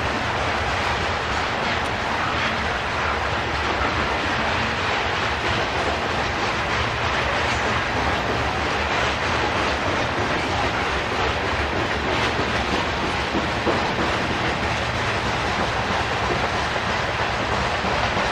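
Freight train's covered grain hopper cars rolling past: a steady rumble and rattle of steel wheels on the rails, with scattered faint clicks.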